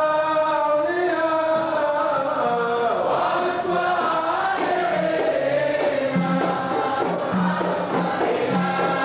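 A group of voices chanting a devotional qasida together, the sung melody rising and falling without pause.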